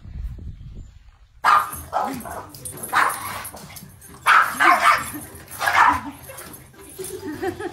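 A dog barking repeatedly, about six short barks starting about a second and a half in.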